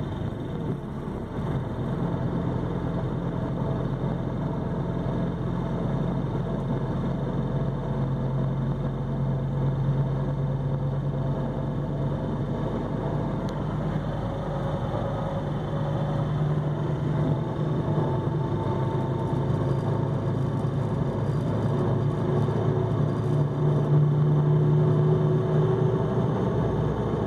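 Mercedes-Benz OH-1628L bus diesel engine running steadily with a low drone, growing somewhat louder in the second half.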